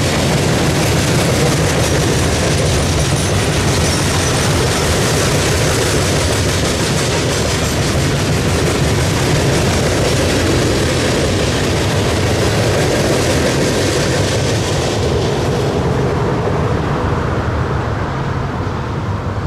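Freight train of open hopper cars rolling past on the rails: a steady rumble of steel wheels on track that starts to fade about fifteen seconds in as the last car goes by.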